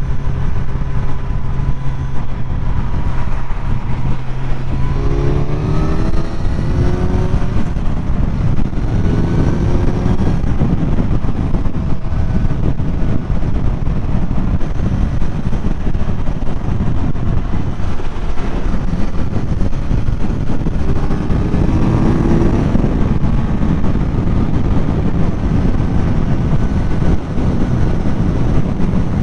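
Kawasaki Z900's inline-four engine running at highway speed under heavy wind and road rush. The engine note climbs in short rising steps twice as the bike accelerates, about five seconds in and again past twenty seconds.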